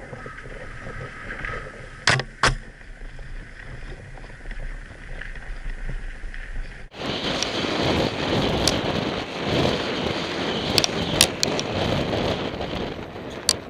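Tandem mountain bike running down a dirt downhill course, heard from a camera on the bike: rough tyre and trail noise with wind on the microphone and sharp knocks over bumps, two close together about two seconds in. About seven seconds in the sound cuts to a louder, hissier stretch of the run with more scattered knocks.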